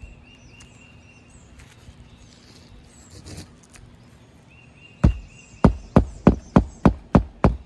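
Magnetic roofing hatchet driving a roofing nail into an asphalt shingle: about nine sharp strikes in quick succession, starting about five seconds in.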